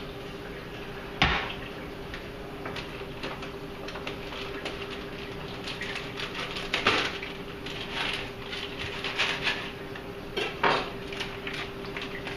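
Scattered clinks and knocks from fish bags being handled at the top of an aquarium: one sharp knock about a second in, then a busier run of clatter in the middle and again near the end, over a steady hum.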